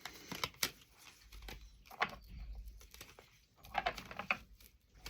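Tarot cards being handled and shuffled, giving a few scattered sharp snaps and soft rustles.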